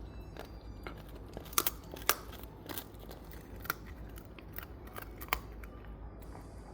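Shiba Inu gnawing on a bone: irregular sharp cracks and crunches of teeth on bone, the loudest a handful of single snaps a second or so apart.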